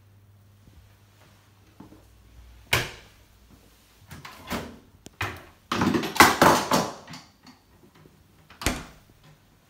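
Kitchen cabinet doors being opened and shut: a sharp click a little under three seconds in, a few knocks, a loud rattling clatter about six seconds in, and another sharp click near the end.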